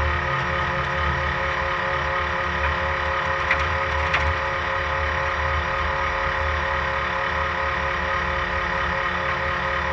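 Off-road race car's engine running at a steady pitch, heard from inside the car, with a pulsing low rumble and a couple of sharp clicks about three and a half and four seconds in.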